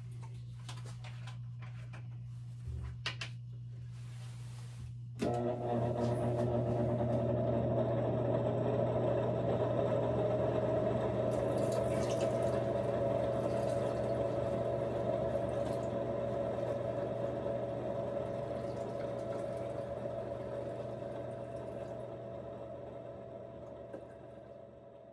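Nitric acid poured from a plastic jug into a glass graduated cylinder: a steady pour starts suddenly about five seconds in and slowly eases off near the end. A few light handling clicks come just before the pour.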